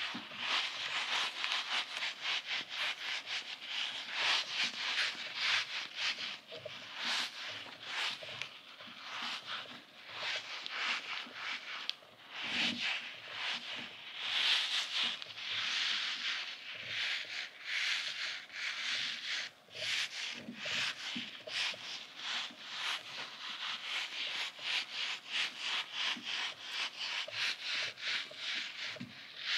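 Fingers squeezing, kneading and rubbing a soft goose-shaped squeeze toy, making a continuous run of quick rubbing and scratching strokes.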